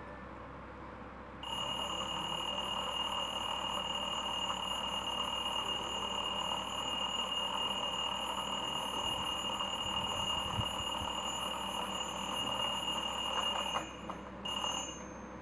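Seiko bedside alarm clock sounding a steady high-pitched alarm tone that starts about a second and a half in. It is cut off near the end when a hand presses the top of the clock, and a short burst follows.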